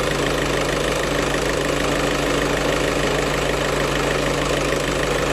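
Volkswagen Touran engine idling steadily in the engine bay, with the air-conditioning compressor engaged and running a freshly recharged R134a system.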